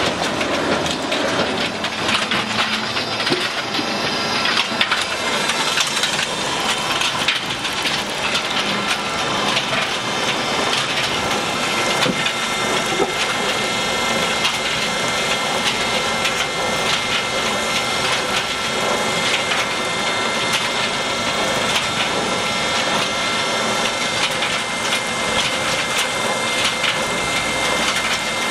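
Log debarking machine running, its spiked rollers stripping bark from logs: a steady dense clatter of crushing and cracking wood and bark, with a faint high steady whine from the machinery.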